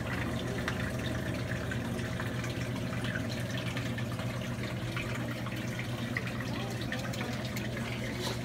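Fish tank's water circulation running: steady trickling water with small drips over a low steady hum.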